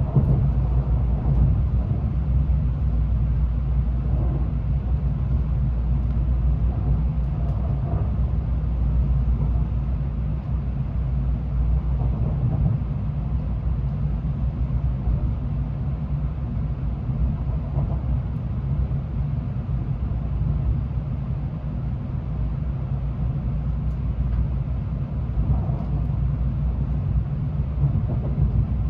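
Cabin running noise of a Tokaido Shinkansen N700A train: a steady low rumble from the running gear and the rails.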